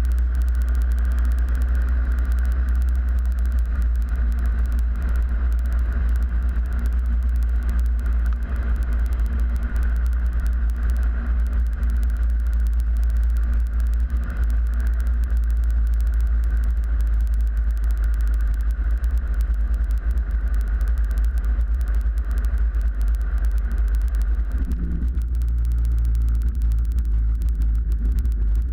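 Cockpit sound of a Cozy Mk4 pusher canard aircraft on final approach: a steady, loud low drone of engine, propeller and wind. About 25 seconds in, the higher part of the drone fades and a lower hum takes over as the plane nears the runway.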